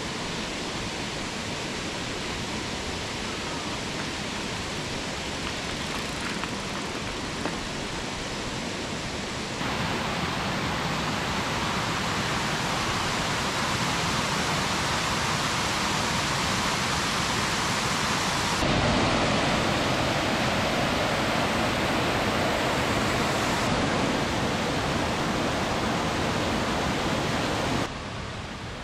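Steady rushing noise with no clear pitch or rhythm, changing in level and character abruptly several times.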